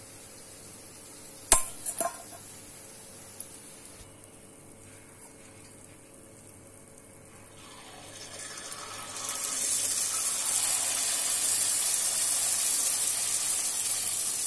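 Vellai appam batter (rice and urad dal) poured into hot oil in the wells of a paniyaram pan, sizzling loudly and steadily from about eight seconds in. Before that, a few sharp clinks of metal on the pan.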